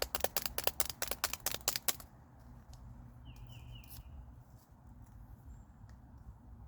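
Seasoning shaker shaken quickly over food, a rapid rattle of about seven strokes a second that stops about two seconds in.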